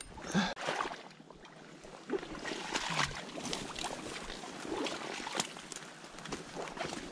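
Dry reed stems crackling and snapping irregularly as someone wades through a reed bed, with the slosh of boots in shallow water and mud.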